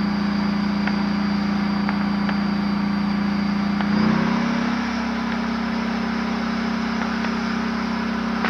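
Tank's diesel engine running with a steady low drone. About four seconds in its note rises briefly and settles a little higher as the engine picks up.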